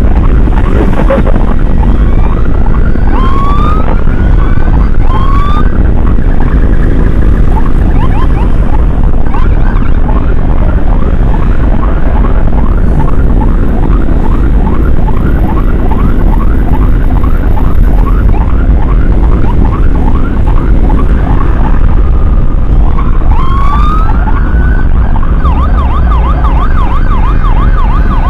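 Emergency siren cycling through its patterns: a few rising whoops, then a long run of quick repeated yelps, more whoops and a fast warble near the end. A loud steady low rumble of wind and road noise runs underneath.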